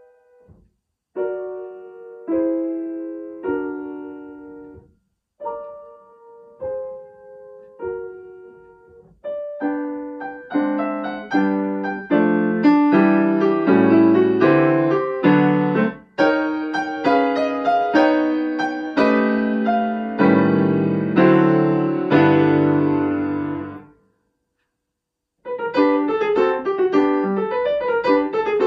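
Grand piano played solo: spaced chords with short breaks, then denser, louder full chords that stop about 24 seconds in. After a short silence, playing resumes with quicker running notes.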